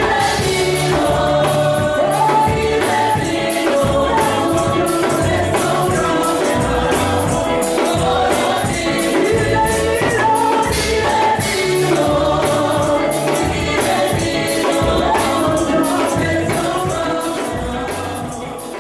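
Gospel choir singing over a band with bass and a steady beat, fading out near the end.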